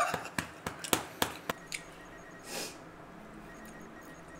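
Metal chopsticks clicking lightly about six times in the first second and a half, then a single short sniff about two and a half seconds in.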